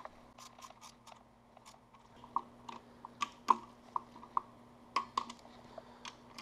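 Irregular sharp metallic clicks and ticks, several with a short ring, from a torque wrench and socket working the oil pickup tube bolts on an aluminium oil pan as they are tightened. A faint steady hum runs underneath.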